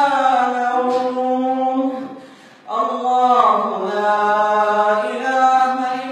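An imam's voice reciting the Quran in a melodic chant, drawing out long held notes that slowly bend in pitch, with a short breath about two seconds in before the recitation resumes.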